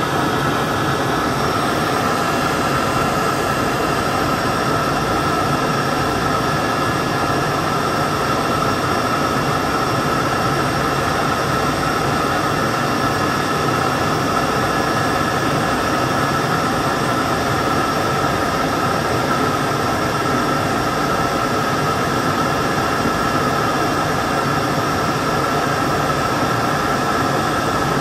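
Airbus ACH135 helicopter's twin turbine engines running steadily: a constant high whine over an even rushing noise.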